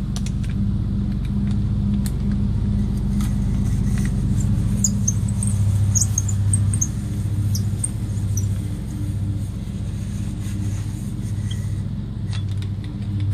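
Drill boring a pilot hole down the end grain of a 3/4-inch wooden dowel, sized for a nail. It makes a steady low whirr that swells and fades in a slow rhythm.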